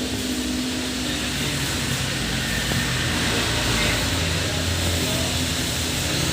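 Hino RN285 tour bus diesel engine running steadily, heard from inside the cabin, with a steady hiss of air from the air-conditioning vents over it.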